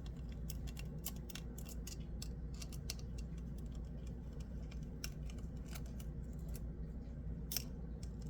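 Irregular small clicks and taps of metal tools and small parts on a metal fidget slider being taken apart, over a steady low hum.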